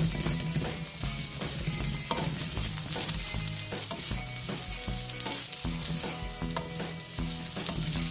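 Carrots sizzling in hot oil in a frying pan as they are stir-fried, with a steady frying hiss and frequent short scrapes and taps of the utensil against the pan.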